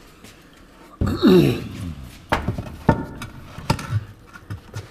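Wooden boards handled against a wall. About a second in comes a loud scrape with a falling pitch, followed by several sharp knocks of wood on wood and wall.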